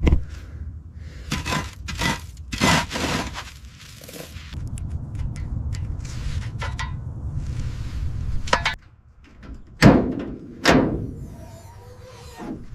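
A run of knocks, thuds and scraping strokes, with a steady low rumble under scraping for about four seconds in the middle and two loud hits with a short ringing tail near the end.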